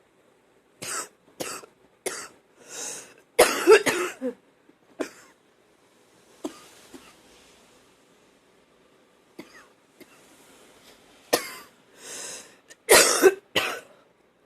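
A woman's wet, phlegmy cough, coming in two fits of short coughs. The first fit builds to its hardest coughs about four seconds in. After a quieter pause, a second hard burst comes near the end.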